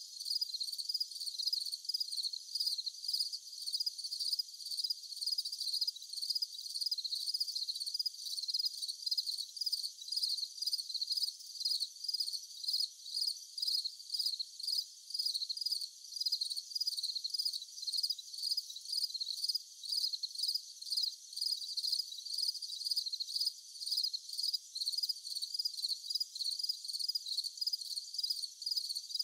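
Insects chirping: a high-pitched, evenly pulsing chorus that keeps on without a break.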